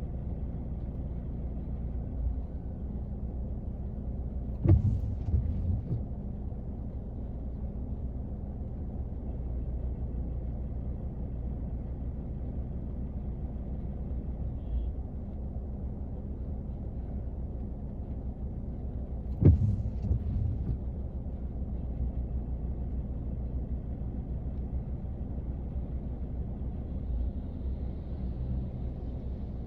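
Rain drumming steadily on a car's roof and body, heard from inside the closed car as an even, dull patter. It is broken twice, about five seconds in and again about twenty seconds in, by a sharp knock on the car followed by a short cluster of heavier thuds.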